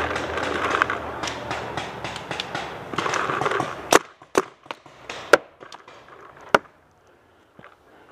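Scuffling and rustling of a paintball player moving through woodland brush and into a pipe bunker, then about five sharp, separate paintball pops over the next two and a half seconds.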